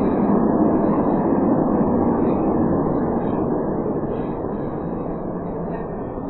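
Crowd in a gymnasium cheering, loudest in the first couple of seconds and slowly dying down.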